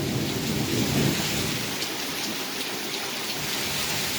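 Steady hiss of rain falling during a thunderstorm, with a low rumble of thunder dying away in the first second or so.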